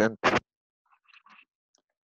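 Brief speech: one voice says a single word, "presente", then a quiet pause with a few faint soft sounds about a second in.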